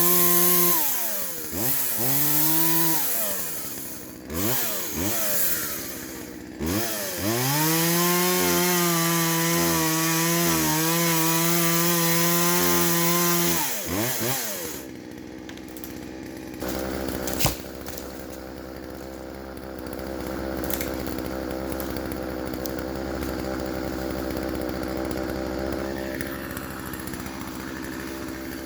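Poulan two-stroke chainsaw with a dull chain, revving and cutting wood: the engine note drops and climbs several times, then holds at high revs for about six seconds. About halfway through it falls back to a quieter steady idle, with a single sharp crack a few seconds later.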